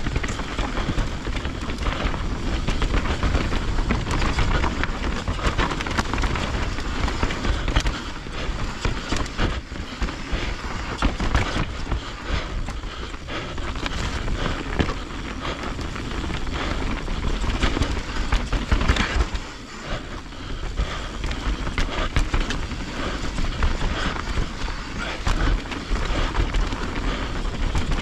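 Mountain bike ridden fast down a dirt trail: wind rumbling on the camera microphone, with tyres on loose ground and the bike rattling and clattering over bumps. It eases off briefly about two-thirds of the way through.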